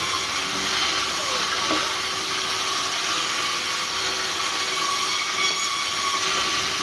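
Sawmill log band saw running as a log is fed through it on the carriage: a constant, even hiss with a faint steady tone.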